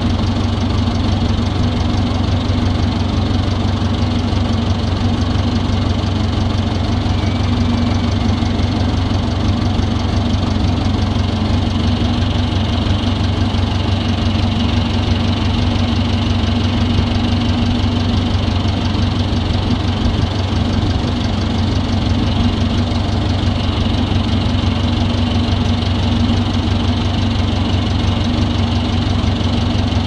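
Heavy diesel engine idling steadily.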